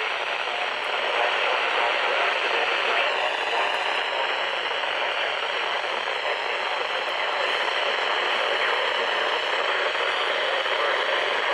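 Steady radio static hiss from a weather radio receiver between announcements, with no clear tone or voice coming through.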